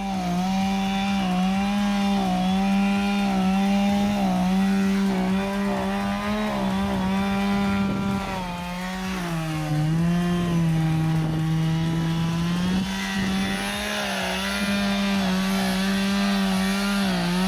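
Chainsaw running at high revs, cutting into a rotted ash stump. Its pitch drops for about three seconds in the middle as the chain bogs down under load in the cut, then revs back up.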